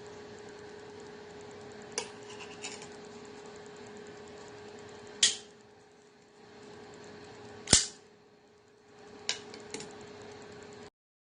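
A handful of sharp clicks and snaps from a folding pocket knife being handled, the loudest about two-thirds of the way through, over a steady low hum. The sound cuts off abruptly near the end.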